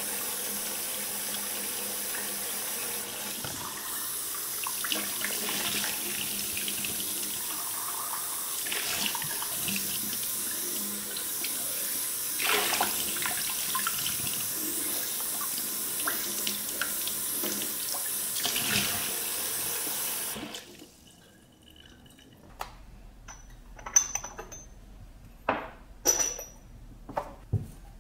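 Kitchen tap running into a stainless steel sink while a glazed stoneware jar is rinsed and rubbed by hand under the stream. The water stops about twenty seconds in, followed by several sharp clinks of small ceramic jars and lids being handled on the counter.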